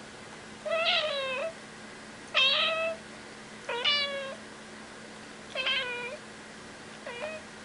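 A domestic cat meowing over and over: five meows about a second and a half apart, the last one short.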